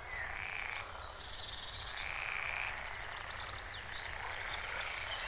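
Frogs croaking in repeated rasping bursts, each under a second long, with short high chirps above them and a steady low rumble beneath: a forest night chorus.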